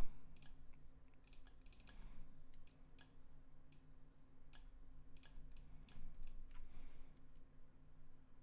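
Computer mouse clicks, a dozen or so sharp, irregularly spaced clicks, over a faint steady low hum.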